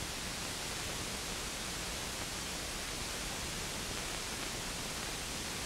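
Steady hiss of an old film soundtrack, with no other sound above it.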